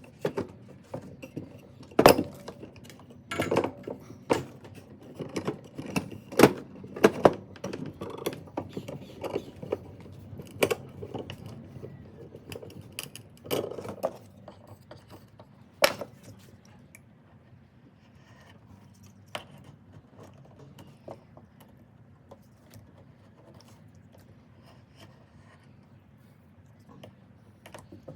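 Irregular clinks and knocks of hard objects being handled, densest over the first fifteen seconds, with a few single knocks after that.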